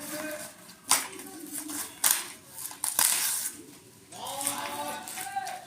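Packaging being handled during an unboxing: three sharp clicks about a second apart, the third followed by a short crinkling rustle.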